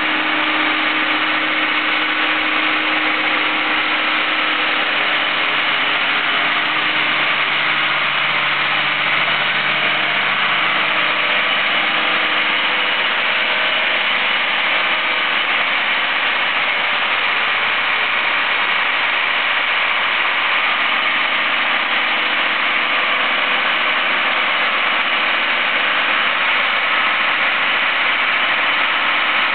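A mobile crane's engine running steadily as the crane carries a marine engine hanging from its chains, with a lower hum that fades out about a third of the way through.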